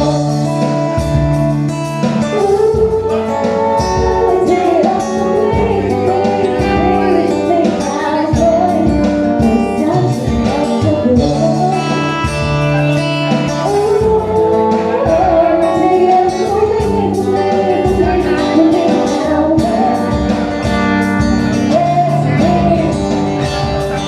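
Band music: a voice singing a melody over guitar, steady bass notes and regular percussion.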